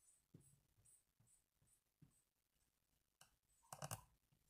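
Faint strokes of a Sharpie fine-point marker colouring on shrink plastic film, short scratchy strokes with a few soft ticks and knocks near the end.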